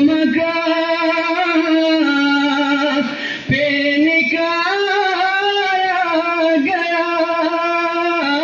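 A man chanting an Urdu manqabat (a devotional poem in praise of the Imams) into a microphone, holding long, wavering notes. He breaks off briefly for breath about three and a half seconds in, then goes on.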